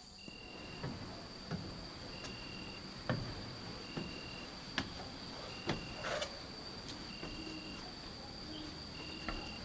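Night-time insect chorus: crickets, one keeping up a steady high trill while another gives short chirps about every second and a half to two seconds. Soft, irregular knocks sound over it, like slow footsteps.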